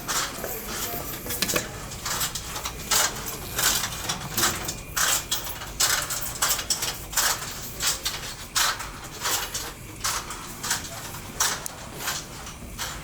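Hard-soled footsteps on a hard floor, sharp clicking steps at about two a second with some clinking.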